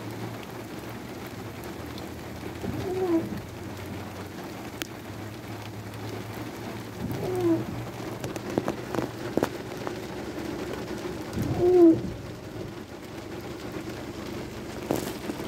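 Steady hiss of rain, with a bird's short, low call repeating about every four seconds.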